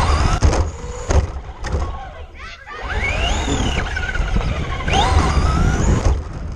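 Traxxas RC car's motor whining as it drives on concrete, its pitch rising and falling with the throttle, easing off and dropping away about two seconds in before climbing again. Underneath is a steady low rumble of wind and vibration on the car-mounted camera's microphone, with a few sharp knocks from bumps in the first couple of seconds.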